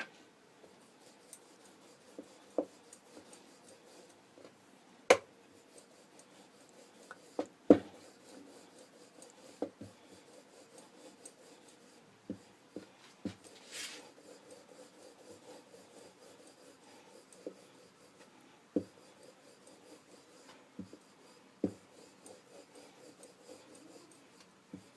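Rolling pin rubbing back and forth over samosa dough on a rolling board, with a low scraping sound and occasional sharp knocks where the pin or board bumps.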